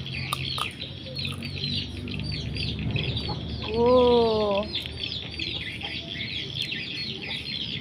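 Many small birds chirping rapidly and continuously, in a dense chorus of short downward-sweeping chirps. About four seconds in comes a single louder drawn-out call, rising then falling in pitch for about a second.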